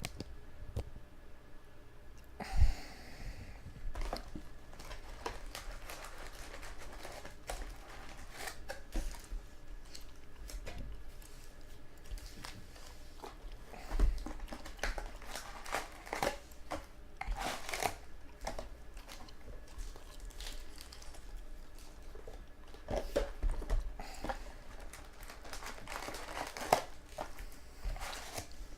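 Foil trading-card pack wrappers being torn open and crinkled, with cards being handled, in irregular crackles and clicks throughout.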